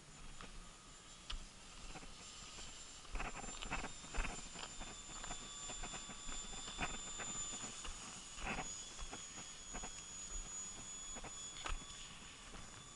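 Faint steady whine of the Art-Tech Texan T-6 RC plane's electric motor in flight, with scattered clicks and taps close to the microphone.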